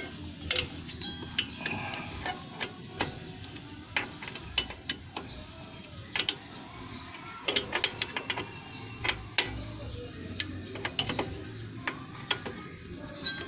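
Socket wrench ratcheting and clinking in short bursts of clicks as a bolt on a car's rear drum-brake backing plate is tightened.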